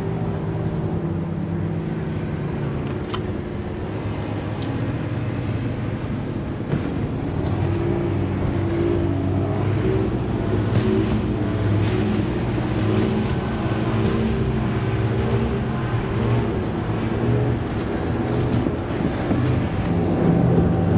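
Outboard motors of several passing bass boats, their engine tones overlapping and drifting slightly in pitch, growing louder near the end.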